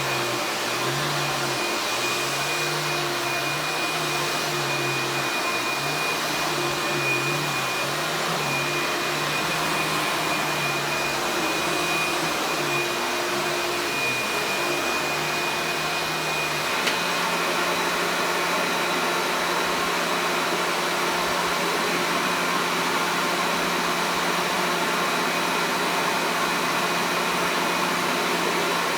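1990s vacuum cleaner motor running steadily with a high whine over a wavering low hum. A little past halfway there is a click, and the hum and whine settle into a steadier, higher-pitched tone.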